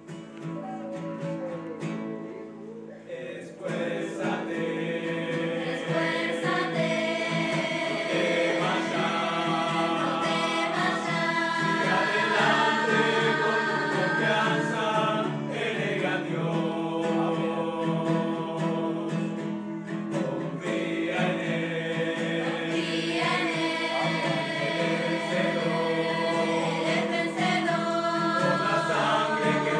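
Mixed choir of young women and men singing in church, accompanied by an acoustic guitar. The full choir comes in about three to four seconds in, and the singing then runs on steadily.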